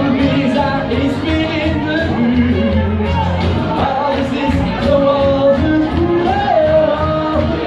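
Upbeat dance music with a singing voice carrying the melody over a steady beat, played loud.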